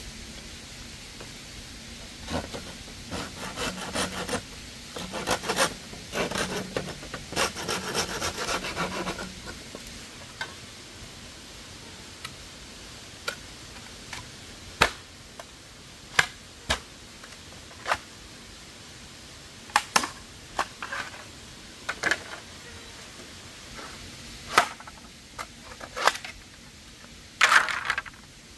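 Several seconds of rubbing and scraping, then a scatter of single sharp knocks and clicks a second or two apart.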